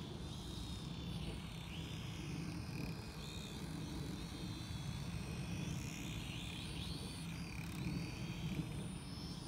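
Whine of the motors of a small Petrel FPV quadcopter drone in flight, its high pitch rising and falling again and again, over a low steady rumble.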